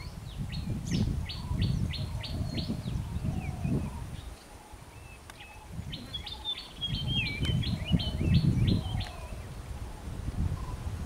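A songbird singing two runs of quick repeated high notes, one near the start and one past the middle, over a louder low rumbling noise that comes and goes.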